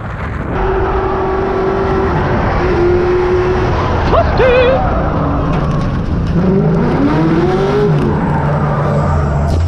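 Drift cars on track, with engines at high revs and tyres squealing as they slide. One engine's pitch climbs about two-thirds of the way through.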